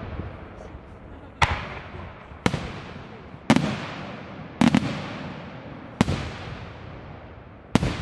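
Aerial firework shells bursting: six sharp bangs about a second apart, each followed by a long rolling echo, two of them coming close together a little past the middle.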